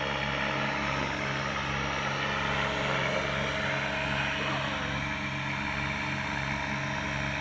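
Three radio-controlled helicopters, Align T-Rex 500, 600 and 700, flying together in formation: a steady whine of rotors and motors, with several pitches layered on top of one another.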